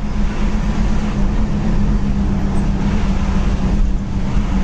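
Coach bus driving at speed, heard from inside the cab: steady engine drone with a low hum, over road and wind noise.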